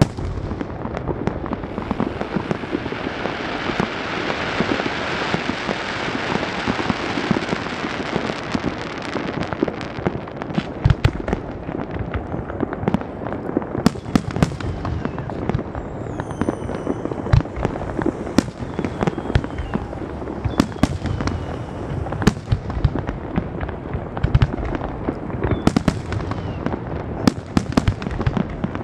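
Fireworks display: a dense crackle of bursting shells for the first several seconds, then a rapid, irregular series of sharp bangs with a few short falling whistles among them.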